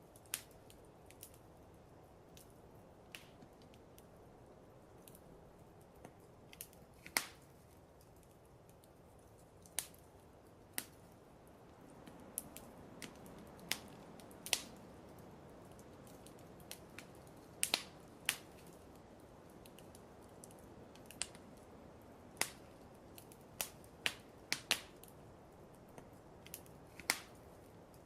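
Wood fire in a fireplace crackling: irregular sharp pops and snaps at uneven intervals over a steady low hiss.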